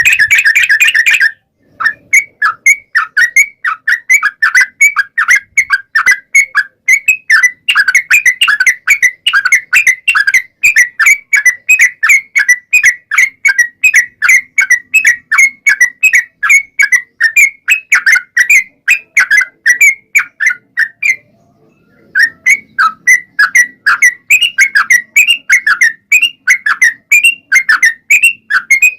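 Yellow-vented bulbul (trucukan) singing a long rapid run of short, sharp notes, about four a second. It opens with a brief held note, pauses for about a second just past the twenty-second mark, then carries on.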